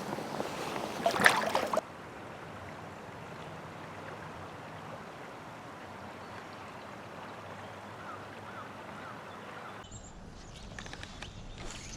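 River water flowing steadily. The first two seconds are louder, with sharp clicks, and the sound changes abruptly twice: about two seconds in and near the end.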